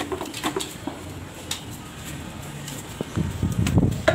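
A few light clicks and taps, like a dog's claws and a plastic bottle knocking on a tiled floor, then about three seconds in a louder run of low, rumbling thumps as the hand-held phone is swung about.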